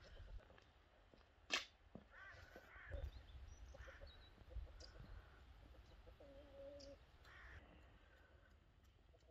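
Faint open-air quiet with a low wind rumble and scattered distant animal calls, including one held call about six seconds in. A single sharp click about a second and a half in is the loudest sound.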